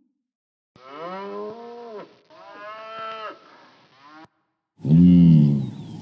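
Two drawn-out cow moos. From about five seconds in, a loud run of short, repeated calls from a blue wildebeest.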